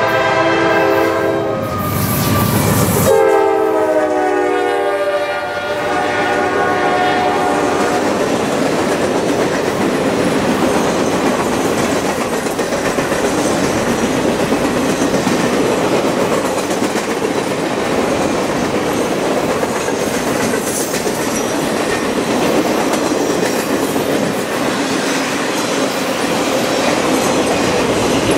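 Norfolk Southern freight locomotive sounding its multi-note horn chord in two long blasts as it passes close by, with a loud rush about two seconds in and the horn's pitch falling as it moves away. Then the steady rolling clatter of the Triple Crown RoadRailer trailers' wheels on the rails as the train goes by.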